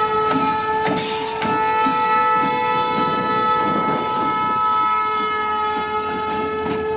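Diesel freight locomotive's air horn held as one long, steady blast over the rumble of the passing train, cutting off right at the end.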